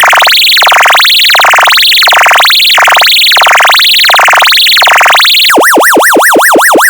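Electronic siren tone made on an audio function generator, sweeping up and down about one and a half times a second. Near the end it switches to a faster, lower siren sweep about four times a second.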